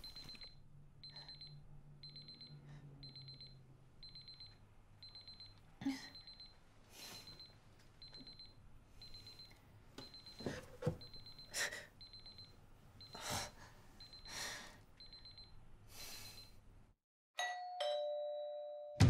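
An electronic kitchen timer beeps in a steady high tone, a little more than once a second, with short breathy gasps between the beeps. It cuts off into silence, and near the end a two-note doorbell chime rings, the second note lower.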